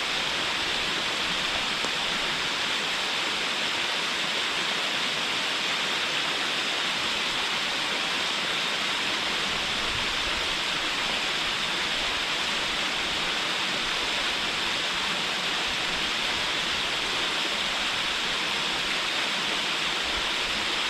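Waterfall pouring steadily onto rocks: a constant, even rush of falling water with no breaks.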